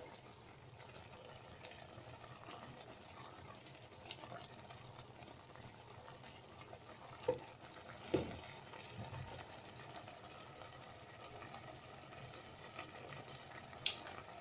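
Pot of chicken broth and glass noodles simmering faintly on a gas burner, with an even soft bubbling. Two light knocks a little past the middle and a short click near the end.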